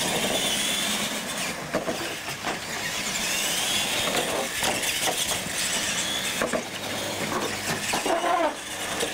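Radio-controlled monster trucks racing on asphalt: motor whine that rises and falls with the throttle over the hiss of the tyres, with a few short knocks.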